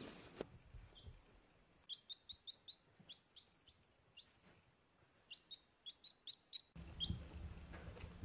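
Baby chick peeping in quick runs of short, high, downward-sliding peeps. There is a brief rustling noise at the start and again over the last second and a half.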